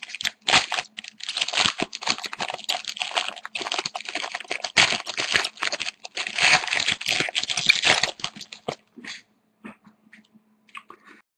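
Foil wrapper of a hockey card pack crinkling and tearing as it is opened by hand, with dense crackling for about eight seconds, then only a few light rustles and clicks.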